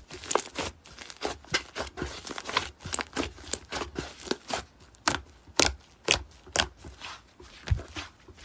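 Slime being squished and worked, giving irregular sharp pops and crackles several times a second, with the loudest pops past the middle.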